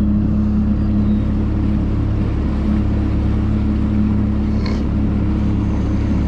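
Bass boat's outboard motor running steadily at cruising speed, a constant engine drone with a low rumble underneath.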